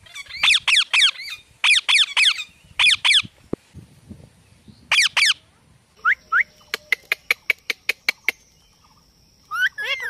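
Indian ringneck parrots (rose-ringed parakeets) screeching in quick runs of three or four harsh calls, then two short rising calls. In the second half a quick run of sharp clicks sounds over a thin steady high tone, and another call starts near the end.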